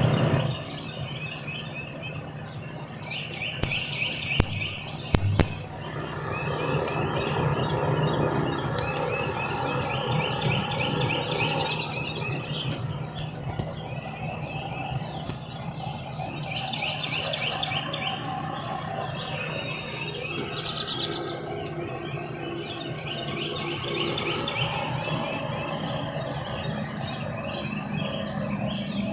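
Birds chirping and calling, many short repeated chirps and trills overlapping, over a steady low hum, with a couple of sharp clicks about four and five seconds in.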